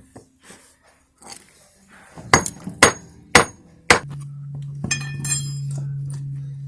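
Four sharp hammer strikes with a metallic ring, about half a second apart, on the saw-cut concrete being broken out. Right after the last one a steady low machine hum starts and keeps going, with a few light clinks over it.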